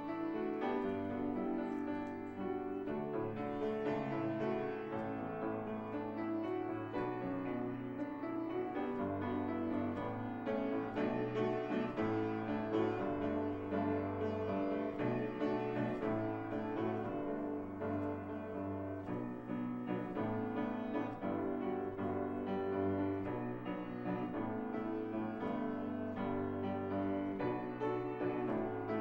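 Slow instrumental keyboard music: sustained chords moving from one to the next over held bass notes.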